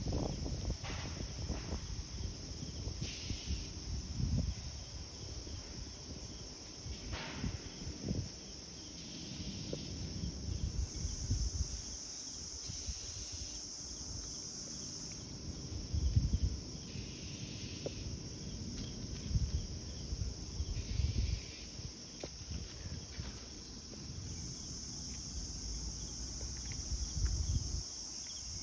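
Insects chirring steadily in a high band, growing louder twice for several seconds at a time, over irregular low rumbling noise.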